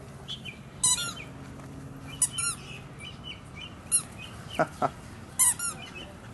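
Squeaky rubber ball squeaking as a puppy chews on it: short high squeaks, several in quick pairs, about nine in all.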